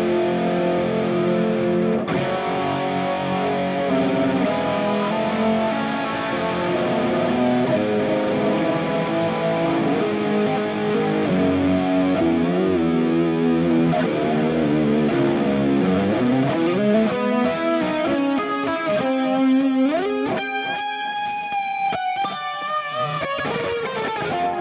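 Electric guitar strung with Elixir Optiweb 9–46 strings being played: held notes and chords, then bent notes gliding up in pitch over the last several seconds.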